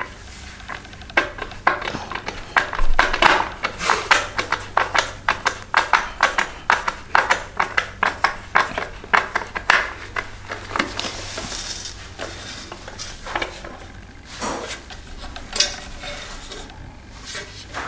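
Hard plastic roof-rack fittings and small screws clicking and rattling as they are handled and fitted together, a rapid run of light clicks and knocks.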